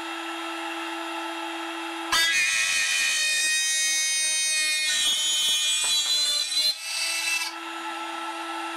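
High-speed spindle spinning a 6.5 mm drill bit at 20,000 rpm with a steady whine, a speed the maker thinks may be a bit fast for that size of drill. About two seconds in, the bit starts cutting through an aluminium plate, a louder, shrill cutting noise that lasts about four and a half seconds before the spindle runs free again.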